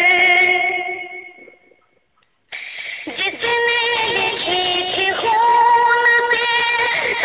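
Naat, a devotional song, sung by a high voice over music; the singing fades out in the first second and a half, there is a moment of silence, then it starts again abruptly about two and a half seconds in.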